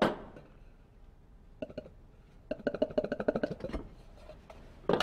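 Aluminium two-piece angel food cake pan being taken apart: a sharp metal clank, then a quick run of rattling, ringing clinks, and another loud clank near the end.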